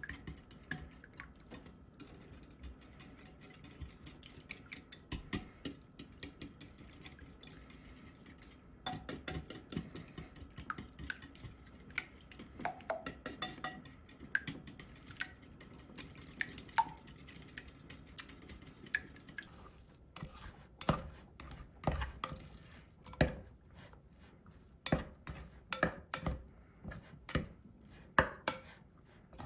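A utensil stirring and knocking against a pan or bowl in a run of quick clicks and scrapes, which grow sharper and louder in the last third.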